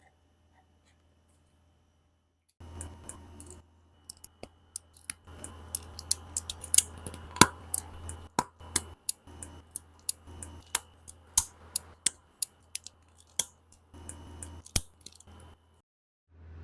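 Plastic Gunpla model-kit parts being worked by hand during assembly: many quick, irregular sharp clicks and snips. They start about two and a half seconds in and stop shortly before the end.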